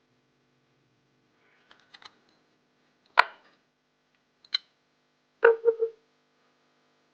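Sharp clicks and knocks of hard objects: a few faint clicks, a loud knock about three seconds in, a single click a second later, then three quick knocks in a row near the end.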